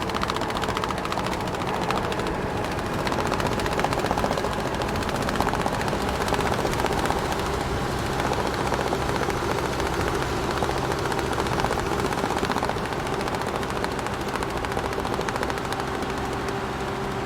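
Large truck driving at a steady pace, its engine running evenly under a fast, continuous rattle of straps flapping against the load.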